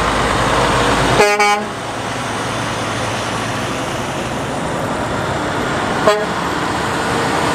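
Semi-trailer trucks driving past on a highway, a steady engine and tyre rumble, with a short horn blast about a second in and another brief toot about six seconds in.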